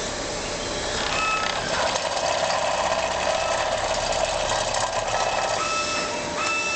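Loud, steady machinery noise, with short high beeping tones that come and go, twice near the end.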